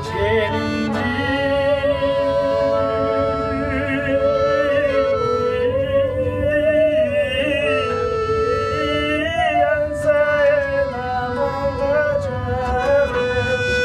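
A small acoustic ensemble plays live: an accordion holds chords while a violin and a small long-necked plucked lute play along, and a voice sings a melody with wide vibrato.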